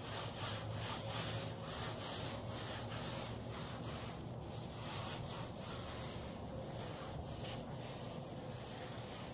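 Gloved hand rubbing wet acrylic paint across a stretched canvas in quick back-and-forth strokes, a soft swishing about two to three times a second.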